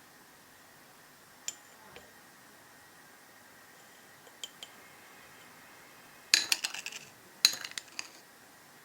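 A utensil clinking against dishes: a few single light taps, then two quick clusters of clinks about six and seven and a half seconds in.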